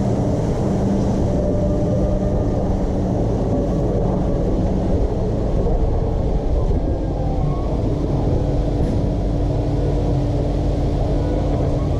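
John Deere T670i combine harvester running steadily under load while cutting wheat, a constant low machine drone with steady tones over it.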